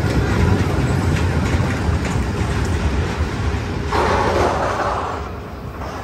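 Magnum XL 200 roller coaster train running along its steel track: a dense low rumble with rapid clatter. A brighter rush of noise comes in about four seconds in and fades near the end.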